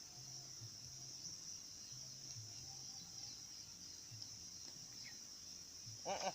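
Faint, steady high-pitched chirring of insects, unbroken throughout, with a brief voice near the end.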